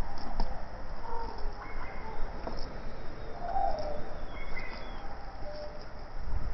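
Short, scattered chirping calls at several different pitches over a steady outdoor background noise, with a few faint clicks.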